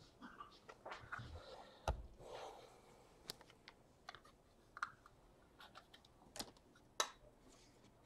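Faint, irregular light clicks and handling noises, with one louder thump about two seconds in.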